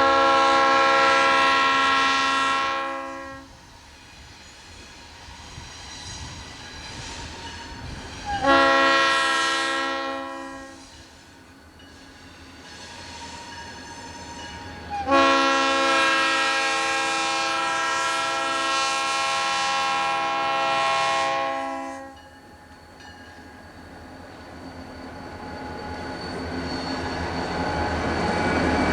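Diesel locomotive air horn sounding three blasts, long, short and long, over the rumble of a passing train. Near the end the train noise swells as it draws closer.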